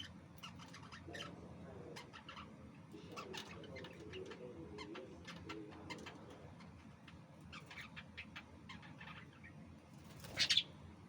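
Lovebirds chirping and chattering, with many short, quick chirps and a lower warbling chatter a few seconds in. One louder, sharp call comes near the end.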